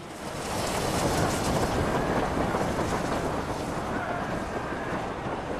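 Steam train running past, a steady rumble and rattle of the wheels on the rails that swells over the first second and then holds.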